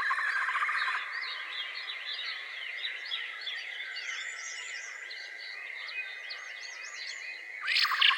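Forest wildlife ambience: insects hold a steady high drone while birds chirp and twitter in quick short notes. A loud pulsing insect buzz sounds in the first second and starts again near the end.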